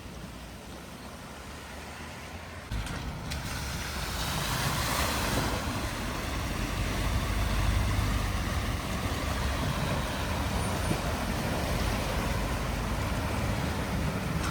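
A vehicle driving through floodwater: a low engine rumble that steps up suddenly a little under three seconds in and builds, with a rush of water spray strongest around the middle.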